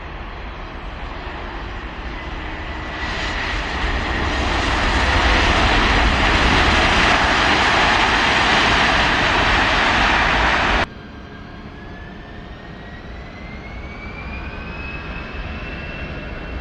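Aircraft engine noise swelling to a loud, dense rush a few seconds in and holding, then cutting off abruptly about eleven seconds in. After that comes quieter engine noise with a whine that slowly rises in pitch.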